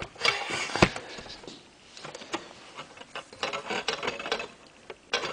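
Metal parts of a mini combine's tensioner pulley and bracket being handled: a sharp knock about a second in, then scattered light clicks and ticks.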